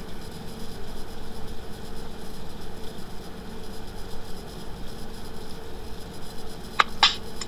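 Steady hiss and low hum of a recording's background noise, with no music or speech, and a couple of sharp clicks near the end.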